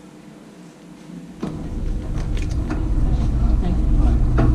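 Wire shopping trolley starting to roll across a hard store floor about a second and a half in: a low rumble of the wheels with rattles and clicks from the metal basket.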